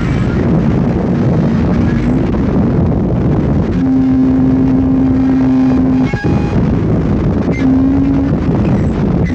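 Harsh noise music: a dense, loud wall of distorted low rumble. A steady droning tone is held for about two seconds in the middle and returns briefly near the end, with a short dropout just after the first tone stops.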